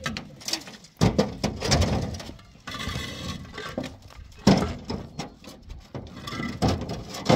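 Hollow concrete blocks knocking and scraping against one another and the truck bed as they are unloaded and stacked on the ground, with a few sharp knocks, the loudest about four and a half seconds in.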